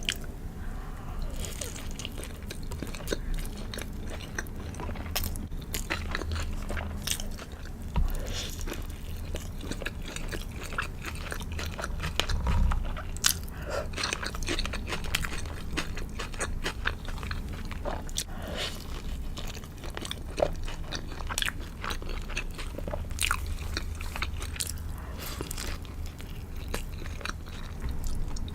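A person biting into and chewing a crispy fried chicken burger, with close crunching and crackling of the fried coating at irregular moments throughout.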